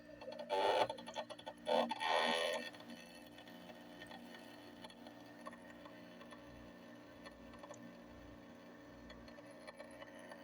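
1998 Fedders 5100 BTU air conditioner starting up with a weird noise: two loud, harsh bursts in the first three seconds, then it settles into a steady hum with faint ticking.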